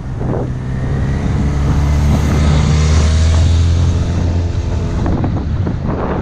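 A motorcycle engine passes close by and pulls away ahead. It is a steady low engine note, loudest about three seconds in and fading by about five seconds, over wind rush on the microphone.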